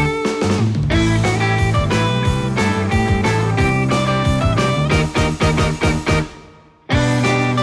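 Background music with guitar and a steady beat; it fades out about six seconds in and comes back abruptly a second later.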